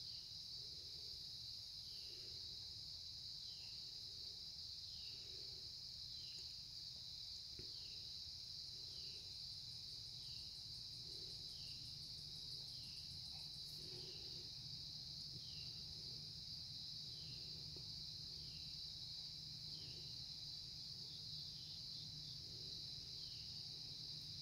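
Faint, steady high-pitched trilling of an autumn insect chorus, with a short falling chirp repeating about once a second.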